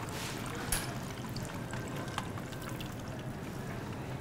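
Panko-breaded goat cheese logs deep-frying in hot oil in a saucepan: a steady sizzle with small crackles. A single sharp click comes just under a second in.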